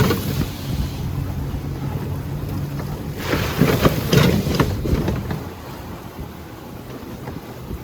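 Wheeled dog cart rolling along a dirt trail behind its dog team: a steady rumble and rattle of the wheels and frame, with wind on the microphone. It gets louder and more rattly about three seconds in, then settles lower near the end.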